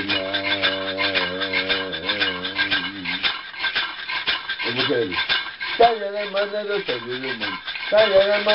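A man singing a chant in long, wavering held notes while shaking a handheld rattle in a steady, fast, dense rattle. The voice breaks off for about two seconds in the middle while the rattle keeps going, then the singing resumes.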